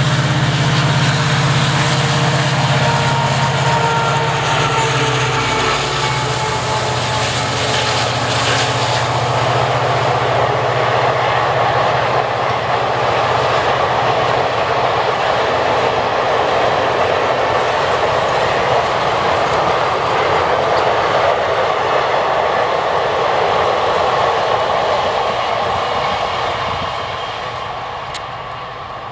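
An Indian Railways passenger express hauled by a WDP-4D diesel locomotive passes close by. The locomotive's low engine drone in the first few seconds gives way to the steady rolling noise of the coaches' wheels on the rails. The noise fades near the end as the last coaches move away.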